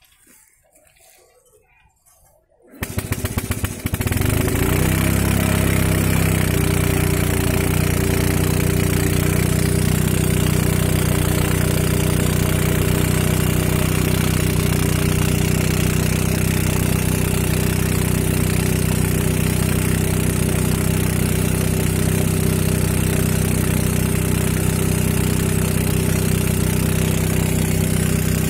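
Small engine of a rail-track maintenance machine starting about three seconds in, rising in pitch for a moment, then running steadily.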